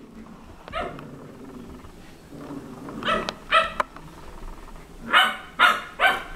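Puppy barking in short, high yaps: one, then a pair, then three in quick succession about half a second apart near the end.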